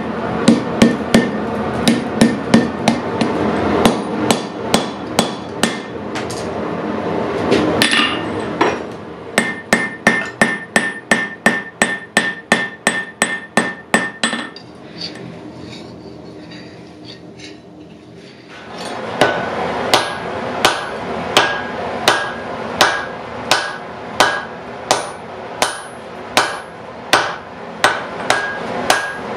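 Hand hammer striking hot steel on an anvil as the damascus blade is forged, steady blows at about two a second, each ringing briefly. The hammering stops for a few seconds in the middle, leaving only a low rushing noise, then starts again.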